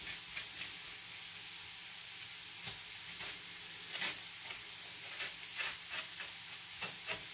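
Chopped onion and garlic sizzling steadily in olive oil in a frying pan, with a few short clicks and scrapes as zucchini halves are hollowed out.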